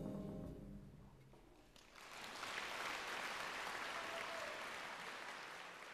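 A big band's last held chord, with a clarinet on top, dies away in the first second or so. About two seconds in, a concert audience breaks into applause that carries on and slowly fades.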